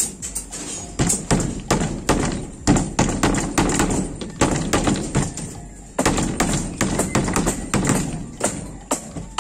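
Hammer tapping and knocking on steel rebar mesh: irregular sharp strikes, several a second, with brief pauses.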